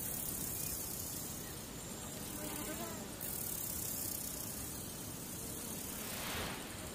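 Steady background hiss with a faint low buzz, and a brief swell of noise near the end.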